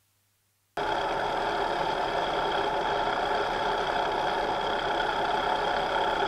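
Harley-Davidson motorcycle's V-twin engine running steadily, starting abruptly just under a second in.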